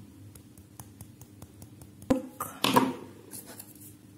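Lip tint applicator tapped against a small plastic bowl of sugar: light scattered clicks and one sharper knock about two seconds in, followed by a brief louder handling noise. Near the end a plastic spoon starts scraping through the gritty sugar.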